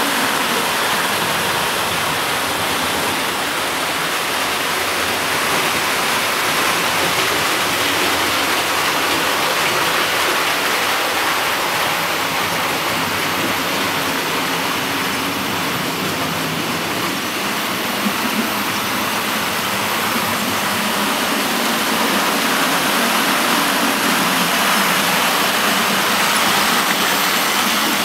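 00 gauge model trains running along the layout's track: a steady rushing noise of small wheels on the rails and the locomotives' electric motors.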